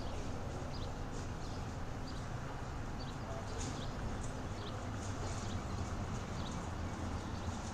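Steady low outdoor rumble with short bird chirps scattered through it.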